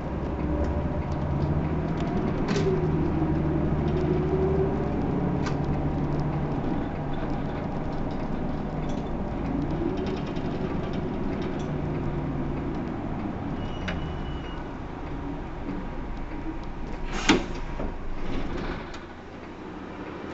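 Hino PDG-KV234N2 city bus heard from inside while under way: the diesel engine's pitch rises as it pulls away, falls, rises and eases off again, over a steady road rumble. A single sharp knock comes about 17 seconds in, and the sound grows quieter near the end.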